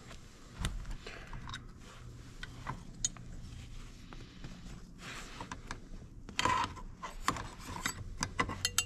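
Handling sounds of small metal bracket parts and a cordless drill being set down and shuffled on a fabric seat cushion: light clicks and clinks with short scraping rustles. There is a louder scrape about six and a half seconds in and a quick run of clicks near the end.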